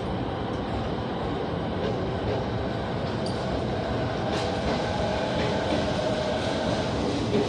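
An electric commuter train on the adjacent track pulling away from the platform. Its motor whine and wheel noise build from about halfway through, over a steady rumble.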